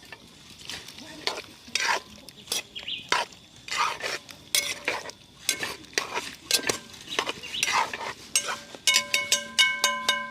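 Spoon stirring and scraping food in a cooking pot, in repeated strokes about one and a half a second. Near the end a ringing tone of several pitches is held under the strokes.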